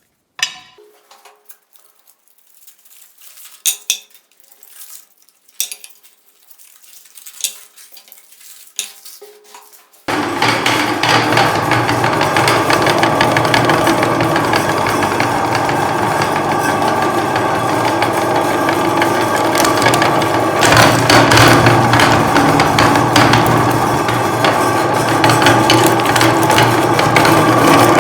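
A few light clinks and knocks, then about ten seconds in an electric meat grinder switches on and runs loudly and steadily, grinding chocolate umbrellas.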